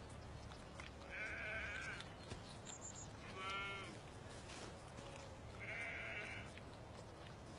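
Young lamb bleating three times, short high-pitched calls about a second in, around three and a half seconds and around six seconds.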